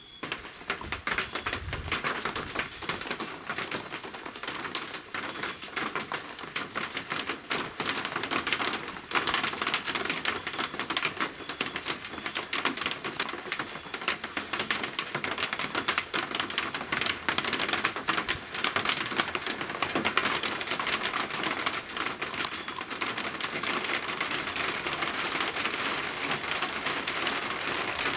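Heavy thunderstorm rain, a dense patter of drops ticking on a hard surface close by, building over the first several seconds and then falling steadily.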